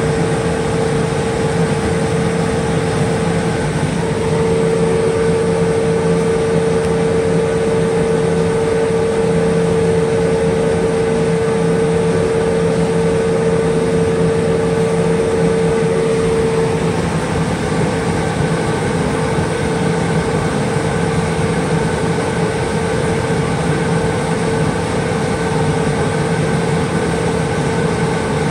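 CO2 laser cutter running a cutting job: a steady mechanical hum from its fans, air pump and gantry motors, with a tone that grows stronger about four seconds in and falls back around seventeen seconds.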